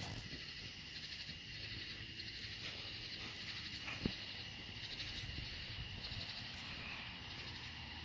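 A steady chorus of night insects, a constant high-pitched chirring with a faint pulsing rhythm in it. A single dull thump sounds about four seconds in.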